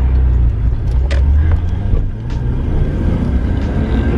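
RB30-powered Nissan Skyline R31 driving, its engine running with a steady low drone, with a few light clicks over it.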